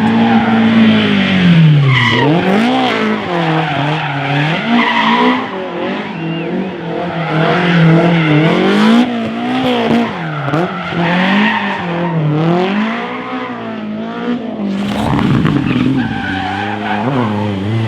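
Rally car engines revving hard and dropping back, the pitch climbing and falling again and again through gear changes and corners. A short loud rush of noise comes about fifteen seconds in.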